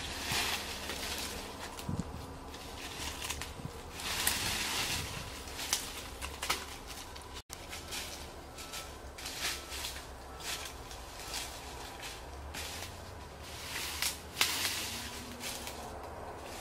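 Dry leaf litter and twigs crackling and rustling underfoot and in hand as dry sticks are gathered off the ground, with irregular sharp snaps of twigs.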